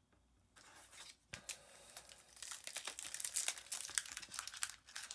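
A Panini Prizm trading-card pack wrapper being torn open and crinkled by hand, as a dense run of crackling. It starts about half a second in and grows busier in the second half.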